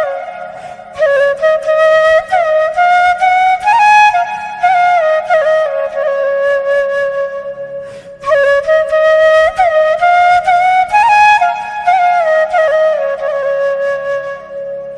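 Background music: a flute melody with sliding, ornamented notes over a soft low accompaniment, in two long phrases with a short break about eight seconds in.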